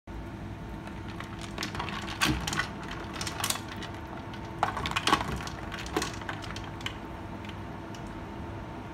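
Ice cubes and hard plastic ice packs clattering and knocking against each other in a bowl of ice water as the packs are moved about: a run of sharp clicks and knocks between about two and six seconds in, over a steady low hum.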